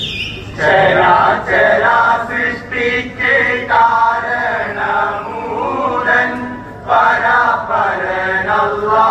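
A group of voices singing a Kolkali song in chorus, a chant-like sung phrase pattern that starts about half a second in.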